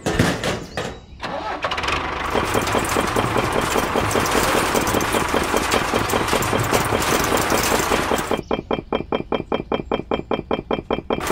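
A tractor engine starting: a burst and a brief pause, then several seconds of fast, dense running. About eight seconds in it settles into an even beat of about seven or eight pulses a second.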